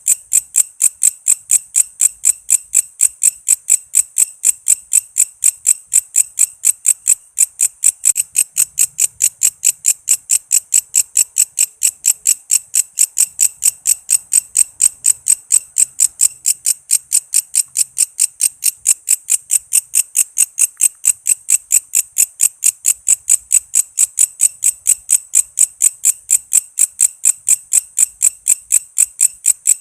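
Walang kece insect calling: a steady, loud train of short, high-pitched chirps, about three a second, in an unbroken rhythm.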